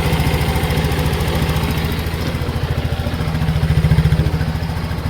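Rusi RFI 175 motorcycle engine idling with a steady, rapid putter that swells a little louder briefly about four seconds in. The engine is running after starting easily once carbon was cleaned out of the starter motor.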